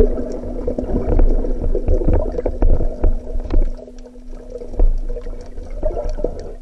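Underwater sound picked up by a camera on a speargun: a low rumble of water moving around the housing, with many scattered clicks and crackles.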